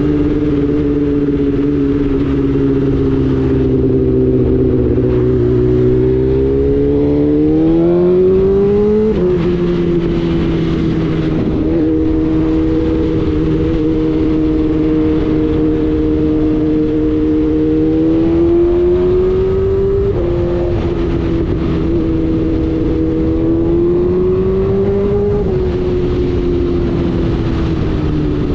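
BMW S1000RR inline-four engine running through an Akrapovic full exhaust, loud. Its pitch climbs gradually and then drops sharply three times, about 9, 20 and 25 seconds in, as at upshifts under acceleration.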